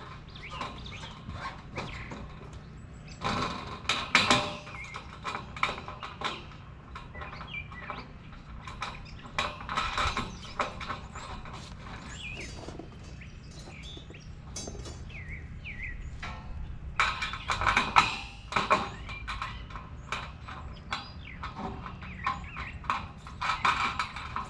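Irregular clanks, knocks and rattles of galvanized steel raised-bed panels and hardware being handled and fitted together, with clusters of clatter about 3 seconds in, around 10 seconds and from about 17 to 19 seconds. Birds chirp faintly in the middle.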